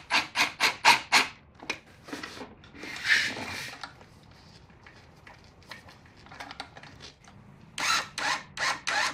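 Cordless drill/driver driving Phillips screws into the plastic motor housing of a pancake air compressor. It runs in two bouts of short, rapid pulses, one at the start and one near the end, with a single longer whir about three seconds in.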